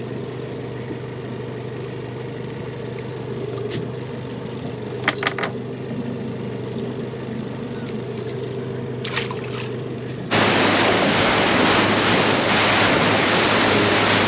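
Small fishing boat's engine running steadily with a low hum, with a few light knocks. About ten seconds in it switches abruptly to a much louder rushing of wind and water as the boat runs under way.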